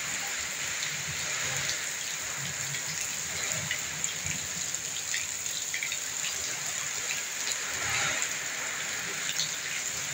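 Heavy rain pouring steadily in a strong wind, with scattered drops ticking on nearby surfaces and uneven gusts rumbling on the microphone.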